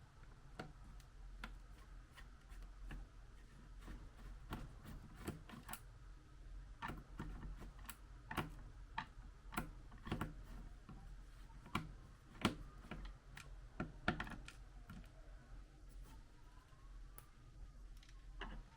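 Hands working on a laptop: a string of light, irregular clicks and taps, roughly one or two a second.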